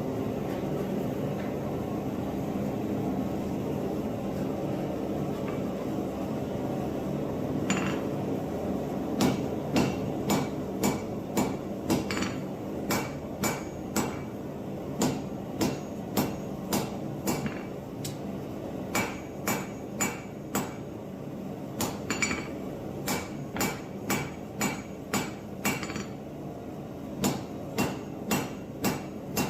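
Hammer blows on steel against an anvil, forging a drawknife blade, about two strikes a second in runs of several with short pauses. The strikes begin about a third of the way in, over a steady rushing noise.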